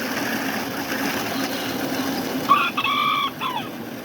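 A Kikiriki bantam rooster crows once, about two and a half seconds in: a short, high crow about a second long that holds its pitch and drops at the end, over a steady low hum.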